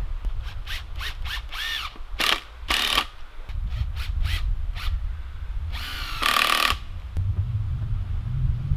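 Power drill driving screws into a tree trunk in several short bursts, its motor whine rising and falling at the start of a burst, then one longer run about six seconds in.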